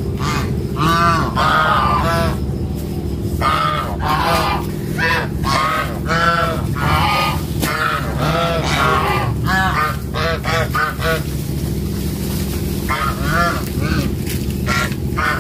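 Fowl honking over and over, short arched calls coming in runs with a gap of about a second and a half about three-quarters through, over a steady low hum.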